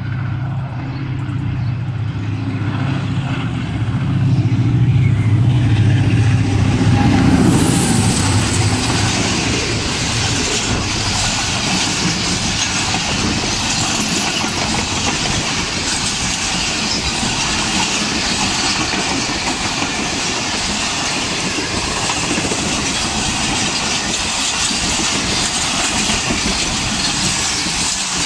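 A ZCU-30 diesel-electric locomotive passes close by, its engine a loud low drone that is loudest about four to seven seconds in. Then its passenger coaches run past for the rest of the time, a steady rush of wheels on the rails.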